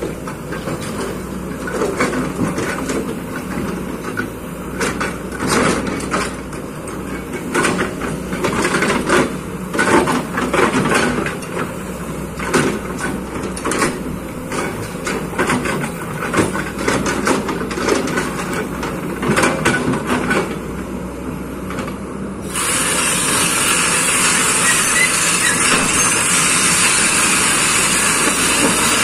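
Kobelco excavator working, its engine running under a steady hum with frequent short clanks and knocks. About 22 seconds in, the sound switches abruptly to a loud, steady hiss.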